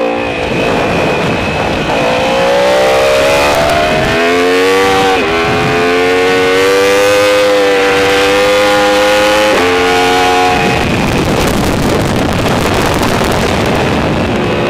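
Onboard sound of a sport motorcycle's inline-four engine at high revs on track. The engine note climbs and drops sharply at each gear change, then holds, over heavy wind rush on the microphone. Near the end the engine fades and the wind noise takes over.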